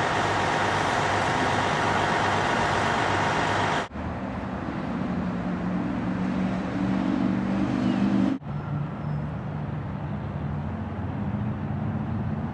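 City street traffic noise from passing and idling cars. A steady hiss in the first few seconds changes abruptly about four and eight seconds in to a lower rumble.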